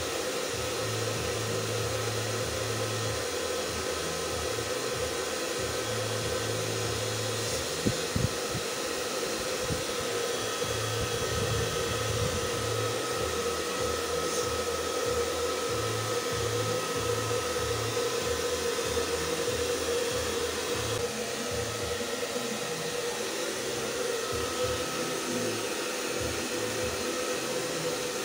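Handheld electric hair dryer running steadily, blowing a dog's coat dry, with a couple of brief knocks about eight seconds in.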